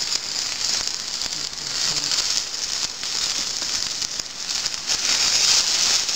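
Hot fat sizzling in a stainless steel frying pan as raw corn-dough arepas are laid in one after another; the sizzle swells and eases.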